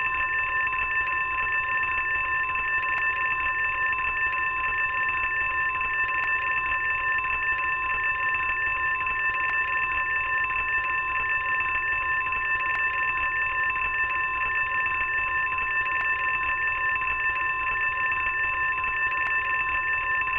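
Fire alarm bell ringing without a break, a steady, unchanging ring.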